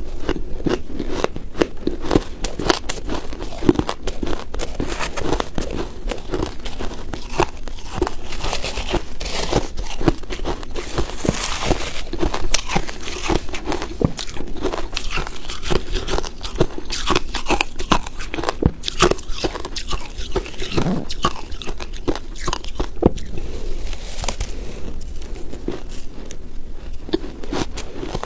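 Close-miked chewing of a mouthful of crumbly frozen ice, a dense, unbroken run of small crunches and crackles.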